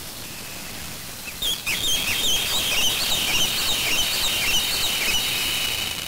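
A flock of birds calling: a quick run of high, wavering chirps starts about a second and a half in and stops shortly before the end, over a steady hiss.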